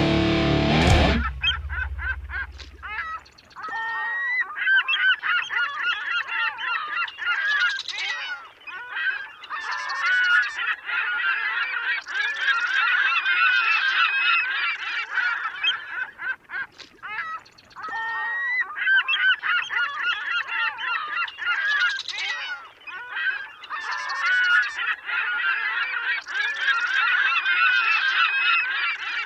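A flock of birds calling, many calls overlapping in a continuous chatter, with brief lulls about four seconds in and again past the middle.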